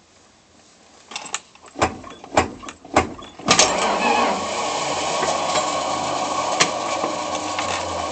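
A few sharp clicks and clunks, then about three and a half seconds in the starter of a 1977 Dodge Slant 6 engages with a loud, steady grinding whir. It has the stripped-gear sound that the owner takes for a bad starter.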